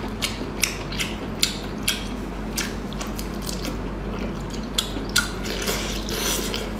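Close-miked eating of whole spiced octopus: irregular wet clicks and smacks from biting and chewing, one or two sharp clicks a second.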